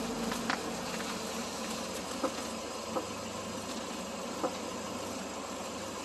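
A 2013 Hyundai Santa Fe 2.0T idling steadily while its front wheels are steered, with about four short creaks spread through the idle. The creaking is still there with both sway bar links disconnected, which rules out the sway bar and its links.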